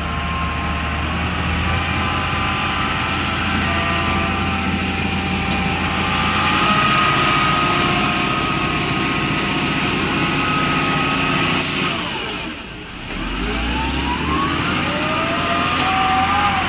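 Excavator's diesel engine running with a steady hydraulic whine while the machine works. About twelve seconds in, the sound briefly drops, then the whine rises in pitch as the engine picks up again.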